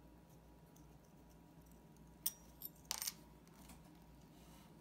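A few small, sharp metallic clicks, one just over two seconds in and a short cluster about a second later, from steel tweezers and parts being handled on a Seiko 6105 watch movement clamped in its holder, over a faint steady hum.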